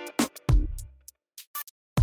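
Background music with a few sharp drum hits, the strongest about half a second in, followed by a sparse, near-empty stretch.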